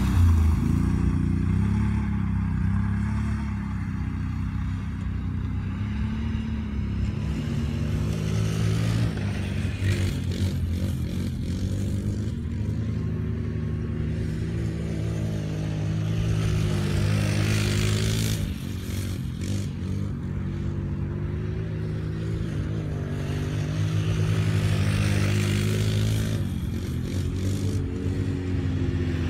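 ATV engines running as quad bikes ride around a field, their pitch shifting as the riders throttle up and ease off, and growing louder at times as a quad comes nearer.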